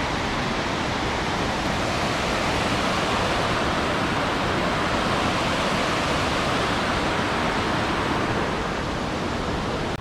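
Waterfall: water falling and splashing, making a loud, steady, even rush.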